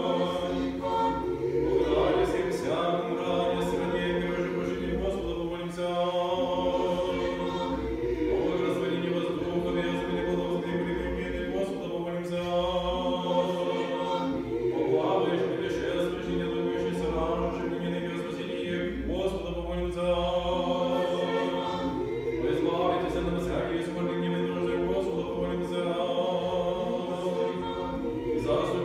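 Unaccompanied choir singing Orthodox liturgical chant in sustained sung phrases.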